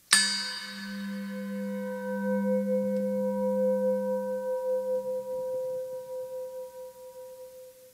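Hand-held brass singing bowl struck once, then ringing on with several steady tones. The middle tone wobbles slowly and the lowest tone dies away after about five seconds.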